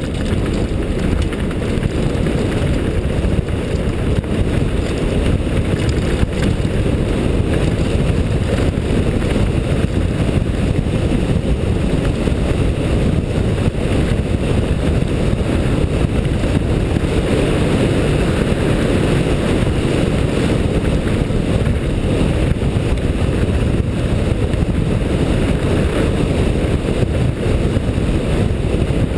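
Wind rushing over a helmet-mounted GoPro and mountain-bike tyres rolling fast over a gravel trail, a steady loud rumble with small rattles from the bike.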